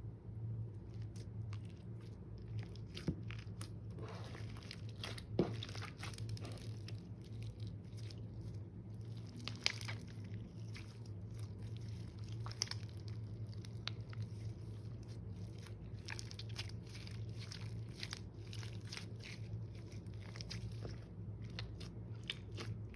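Hands squishing and pressing slime, giving many small irregular crackles, pops and clicks over a steady low hum.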